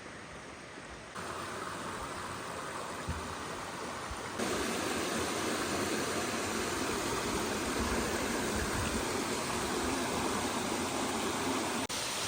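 Steady rush of flowing water. It gets louder in two steps, about a second in and again about four and a half seconds in, with a brief dropout near the end.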